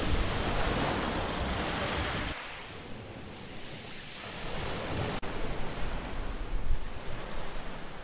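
Small Black Sea waves washing ashore, with wind rumbling on the microphone. The wash drops away after about two seconds, and the low wind rumble grows louder again about five seconds in.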